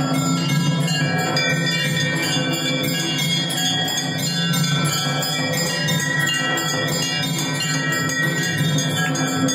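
Temple bells rung rapidly and without pause for aarti, many ringing tones overlapping into a continuous clangour.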